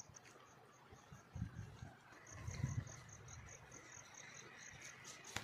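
Faint insects chirping in an even pulse, about four times a second, with a few soft low thumps of a piece of bread being bitten and chewed.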